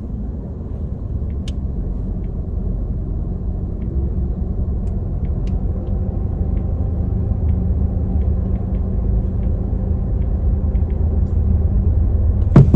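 Steady low hum of a car idling, heard from inside the cabin, slowly getting louder, with a few faint clicks.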